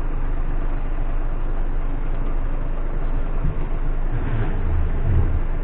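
Diesel engine of a loaded concrete mixer truck running under load with a steady low rumble. Its low note swells briefly about four seconds in.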